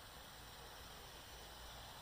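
Near silence: a faint, steady hiss with a light low rumble and no distinct events.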